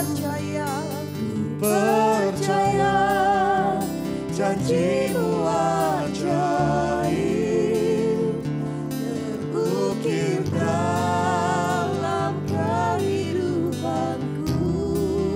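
Two women singing an Indonesian worship song, the melody flowing without a break, accompanied by strummed acoustic guitar and held chords on a Yamaha keyboard.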